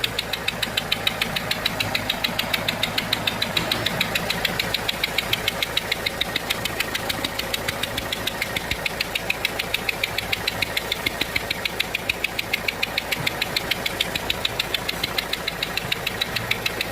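Renault 1.5 dCi four-cylinder diesel engine idling with a fast, even ticking: compression escaping past a faulty seal on one of the injectors.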